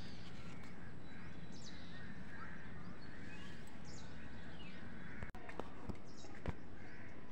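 Outdoor ambience of small birds chirping and calling over a steady low background rumble. There is a brief drop-out a little past five seconds in, and a couple of sharp clicks near the end.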